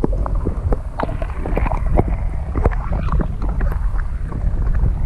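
Wind rumbling on the microphone, with irregular water splashes and lapping against a small boat.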